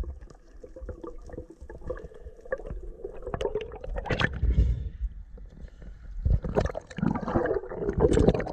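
Water gurgling and bubbling as heard by an underwater camera, with scattered clicks and knocks, growing busier in the second half.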